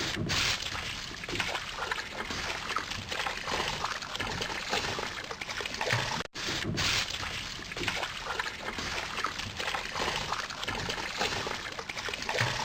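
Water splashing and churning from a swimmer's freestyle strokes, in irregular surges, with a split-second gap about six seconds in.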